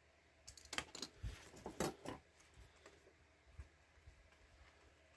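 Folded paper being handled and opened out by hand: a cluster of crisp rustles and clicks in the first two seconds, then a few faint ticks.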